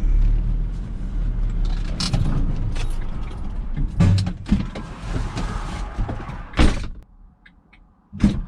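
Vehicle engine running, heard from inside the cabin as it pulls over, with several knocks and clicks; the engine is switched off about seven seconds in, and a door thuds near the end.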